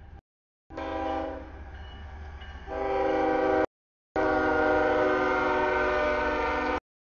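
CSX diesel freight locomotive's air horn sounding for a grade crossing as the lead engine reaches it, over the low rumble of the locomotive. A blast of about three seconds that gets louder partway through, then a long steady blast. The sound cuts out completely for about half a second after each.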